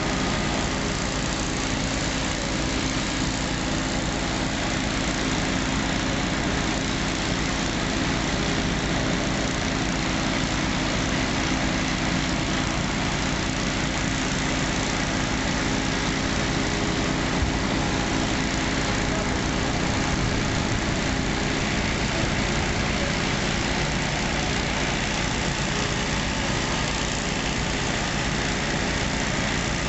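Fire apparatus engine running steadily, an unbroken drone with a constant low hum.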